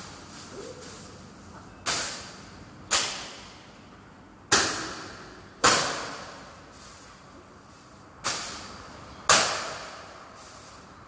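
A badminton racket swung hard at a plastic bag: six sharp swishing smacks in three pairs about a second apart, each with a short echoing tail.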